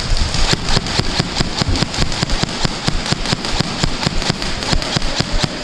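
Airsoft guns firing in a firefight: a rapid, irregular crackle of many sharp shots, several a second, overlapping.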